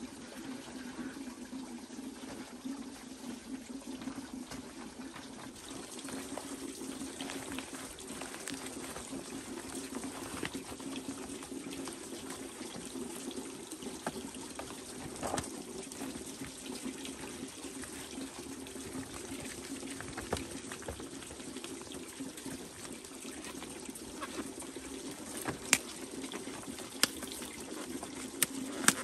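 Water running steadily from a pipe into a metal basin, with a few sharp clicks near the end as large leaves are handled and bundled.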